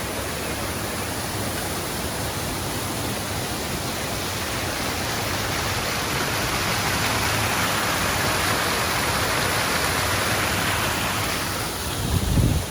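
Rushing water of a creek swollen into a flood torrent, a steady roar that grows louder in the middle. A brief low thump comes near the end.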